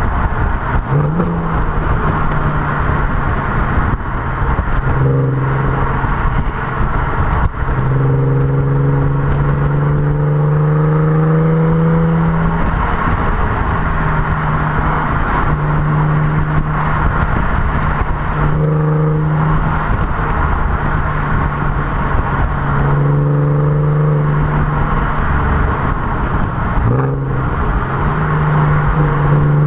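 Audi TT 3.2's VR6 engine and exhaust running on the move. Its note climbs slowly over several stretches of throttle and breaks off between them, over steady tyre and wind noise.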